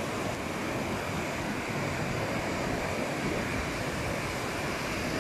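Steady rush of a swollen, muddy river running fast over boulders and rapids.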